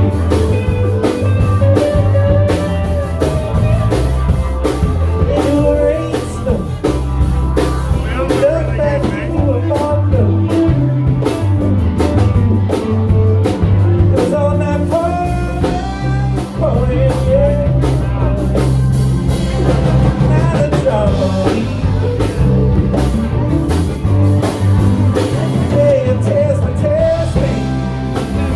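Live rock band playing, with electric guitar lead lines bending over a steady bass and drum kit beat.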